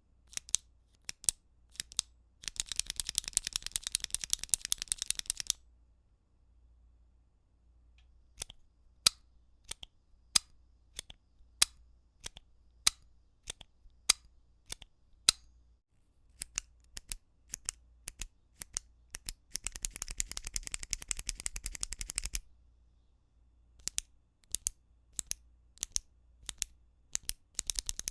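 Retractable pens clicking. There are single clicks, a run of evenly spaced clicks about twice a second in the middle, and two bursts of rapid clicking lasting about three seconds each, a few seconds in and about two-thirds through.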